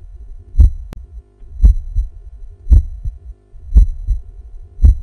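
Logo intro music built on a deep, heavy beat: five low thuds about once a second, like a slow heartbeat, over a faint held tone.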